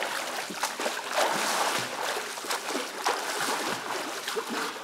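A swimmer doing head-up front crawl, arms splashing into the water stroke after stroke, over a steady wash of churned water.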